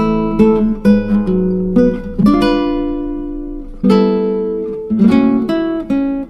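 Background music: acoustic guitar plucking notes and strumming chords that ring and fade, with a longer held chord about midway.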